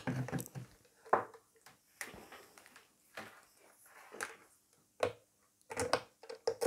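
A multimeter set down on a workbench and its test leads handled and plugged into terminal sockets: scattered light clicks and knocks about once a second, with a quick cluster of them near the end.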